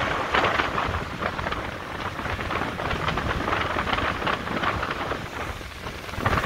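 Strong wind buffeting the microphone over the surf of breaking waves: a dense rushing noise with a low rumble that swells and eases.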